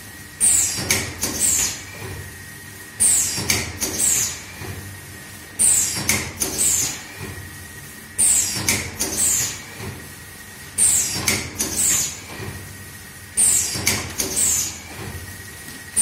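Automatic powder packing machine running its cycle: every two and a half seconds or so a sharp clack, followed by two or three quicker clacks and short hisses, repeating about six times. A faint steady whine runs underneath.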